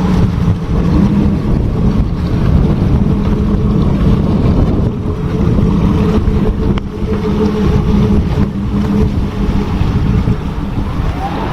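Motorboat's Yanmar turbo diesel engine running steadily while the boat manoeuvres, with wind noise on the microphone. A rising tone that settles into a steady high tone comes in near the end.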